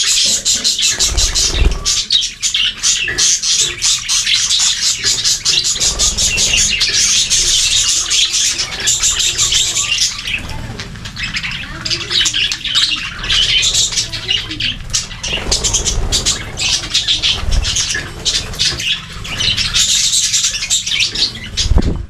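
A flock of budgerigars chattering as they feed close by: a dense, unbroken run of quick chirps, warbles and clicks.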